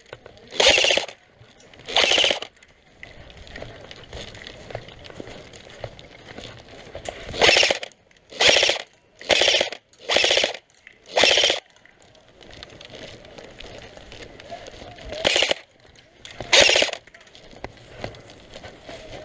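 Airsoft gun firing short full-auto bursts, nine in all, each under a second long, with a rapid run of five close together in the middle.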